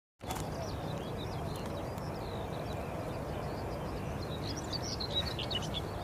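Small birds chirping and twittering over a steady low rumble of outdoor background noise, the calls busiest about five seconds in.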